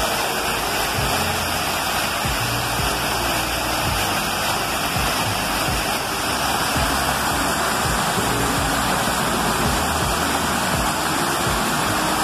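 Water pouring down the face of a textured wall fountain: a steady, unbroken rush of falling and splashing water.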